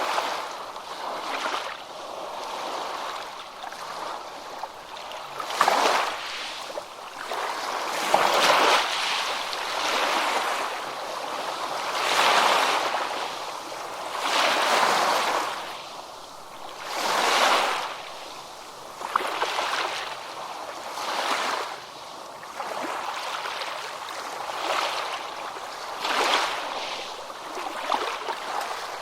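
Ocean surf washing onto a beach: a continuous hiss of water that swells and falls back every few seconds as one wave after another breaks.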